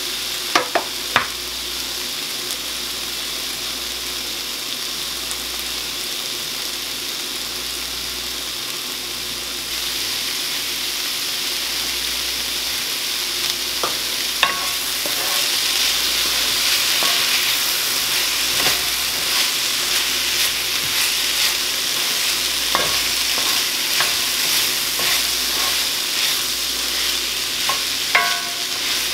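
Chopped bell peppers and onions sizzling in a cast-iron skillet as a splash of water cooks down. A wooden spoon knocks and scrapes against the pan near the start and again near the end. The sizzle grows louder about halfway through, with scattered crackles.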